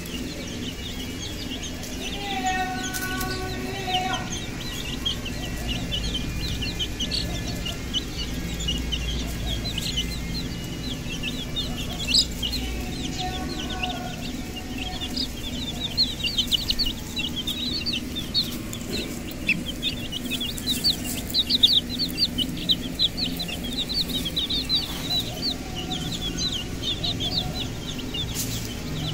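Domestic chicks peeping: a chorus of short, high cheeps that grows busier from about halfway on. Twice, once near the start and again about twelve seconds in, a longer held call with several pitches sounds over them.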